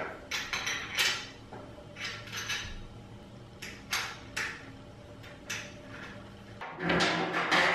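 Metal clinks, knocks and scrapes of bolt hardware being fitted by hand through a wooden wheelbarrow handle and its steel brace bracket, with a longer, louder scrape near the end.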